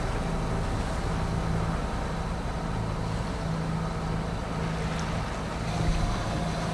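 Sailing yacht's engine running steadily under way, a low hum under a haze of wind and water noise.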